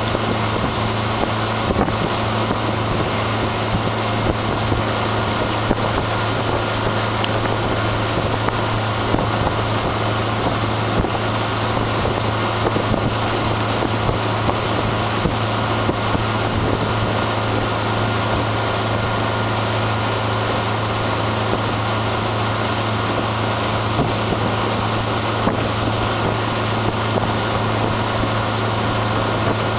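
Outboard motor of a ski boat running at a steady 2800 RPM under the load of towing a water skier: an even, unchanging drone. Wind buffets the microphone and the wake rushes beneath it.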